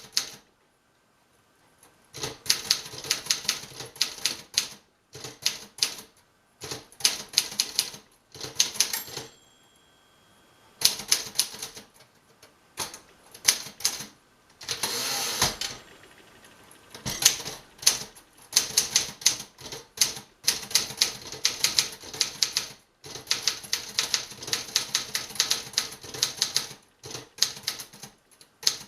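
1956 Remington Letter-Riter manual portable typewriter being typed on: runs of rapid key strikes with short pauses. About nine seconds in, the margin bell rings once. A few more keystrokes follow, then a longer sliding sound of the carriage being returned, and typing starts again.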